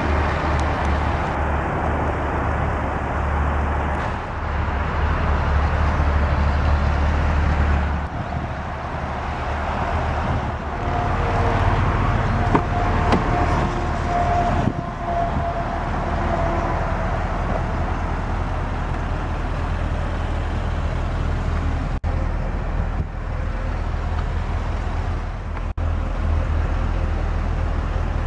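Steady road-traffic noise with a low rumble; a faint whine swells briefly about halfway through.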